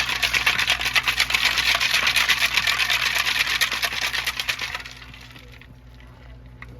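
Rock salt and water rattling and sloshing inside a truck fog light housing as it is shaken hard, a fast even rattle that stops about five seconds in. The salt is scouring caked mud off the inside of the lens.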